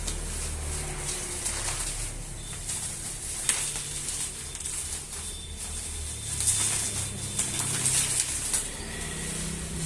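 Packaging being handled during an unboxing: rustling and scraping, with a few sharper crinkles and clicks about three and a half seconds in and more in the second half.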